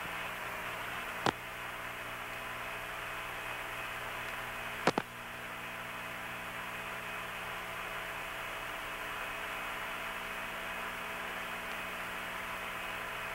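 Steady hiss and hum of an open Apollo air-to-ground radio channel with no voice on it, broken by a sharp click about a second in and a double click near five seconds.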